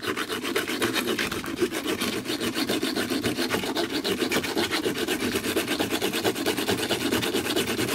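Hacksaw blade sawing through the metal of a lock cylinder in rapid, steady back-and-forth strokes.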